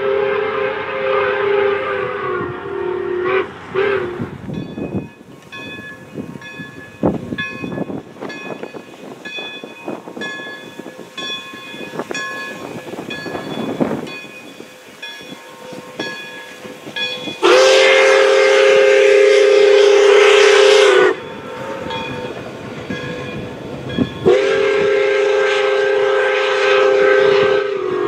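Pere Marquette 1225 steam locomotive whistle sounding a chord of several tones. A long blast ends a few seconds in and is followed by a short one. After a stretch of the train's running noise come two long blasts, each about three and a half seconds.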